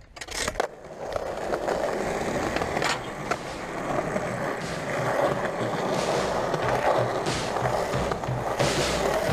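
Skateboard wheels rolling over rough concrete in a continuous grinding roll. It opens with a couple of sharp clacks about half a second in, as the board is set down and pushed off.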